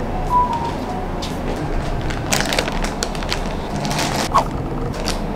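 Scattered rustling and clicking from a door being opened and a plastic packet being handled, with a brief squeak near the start, over a steady background hiss.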